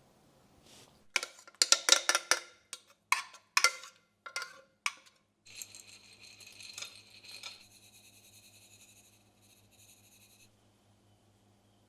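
A run of sharp clinks and knocks, like hard kitchenware being handled, then a small electric appliance humming steadily with a high whine. The whine stops a few seconds before the end and only a faint hum is left.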